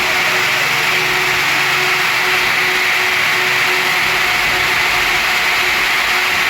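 CNC router running as it carves wood: a loud, steady machine noise with a faint constant tone under it.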